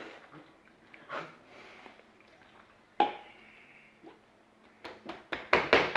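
Quiet breathing and swallowing sounds of men chugging cans of carbonated soda (Dr Pepper), with a sudden short sound about three seconds in and a run of quick short breaths near the end.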